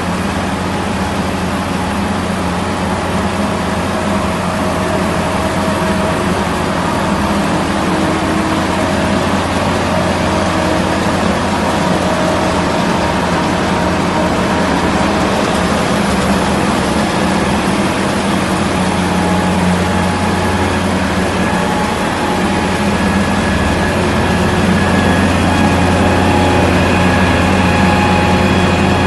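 Large diesel engine of a Sakai ER500F-1 cold milling machine idling steadily with a constant low hum, growing slightly louder near the end.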